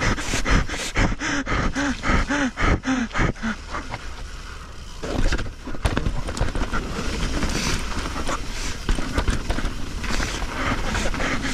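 A rider panting hard, about three breaths a second, for the first few seconds. Then a mountain bike rolling fast on a dirt trail: steady tyre and wind noise with frequent clicks and rattles.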